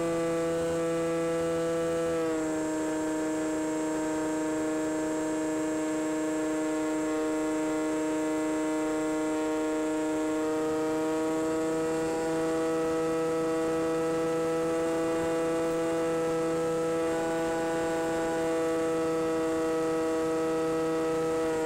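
Pylon-mounted electric motor and propeller of an Easy Glider Pro RC glider running under power with a steady whine. The pitch dips slightly about two seconds in as the throttle eases.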